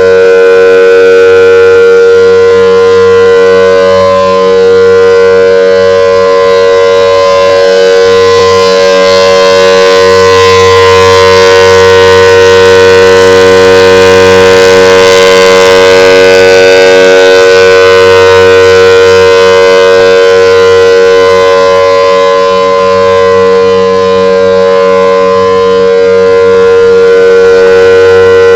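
Federal Signal Thunderbolt outdoor warning siren sounding, very loud, a steady chord of several tones held at full speed with no rise or fall in pitch.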